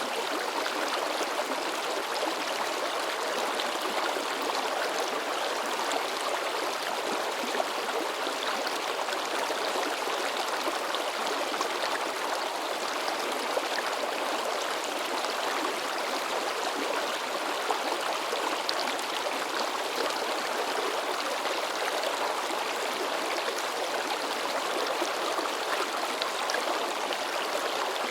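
Mountain river babbling and splashing over rocks, a steady rushing flow of water.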